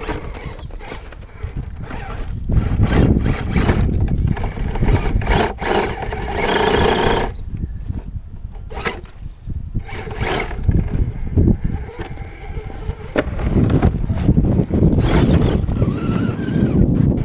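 Axial SCX10 RC crawler's electric motor and geartrain whining in repeated spurts as the truck is driven, with scattered clicks and knocks, under a steady rumble of wind on the microphone.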